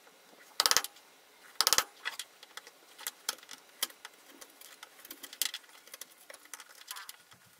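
Wooden mallet striking a wood chisel twice, about a second apart, each blow a short rattling crack. Then light metallic clicks and scrapes as a steel bolt is worked in a small wooden block.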